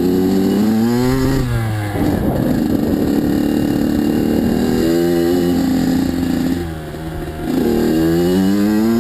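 Kawasaki KX85 dirt bike's two-stroke engine running under way, its pitch rising and falling as the throttle is worked, with a dip and then a climbing rev near the end.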